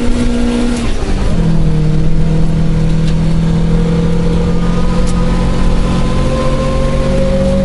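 1977 Isuzu Gemini coupe's 1600cc four-cylinder engine under acceleration, heard from inside the cabin. Its pitch drops about a second in with an upshift, then climbs steadily as the car pulls in the next gear.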